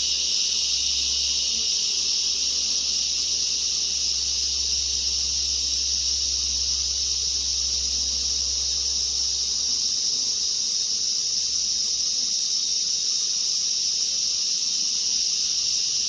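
Loud, steady insect chorus: a shrill, continuous high hiss with no breaks or changes.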